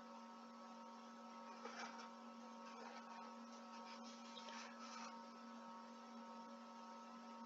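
Near silence with a faint, steady electrical hum, broken by a few faint, brief noises.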